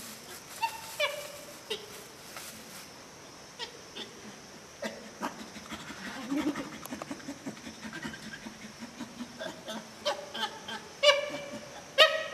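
Chimpanzee giving short, pitched calls in quick runs, the loudest near the end.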